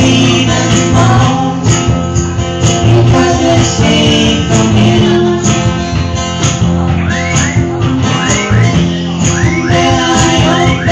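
Live band music played loud through the PA: strummed guitar over a steady beat, with a man singing into a microphone.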